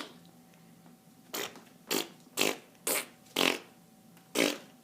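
A run of six short, breathy fart sounds, each about a quarter second long and spaced about half a second apart, the last coming after a slightly longer gap.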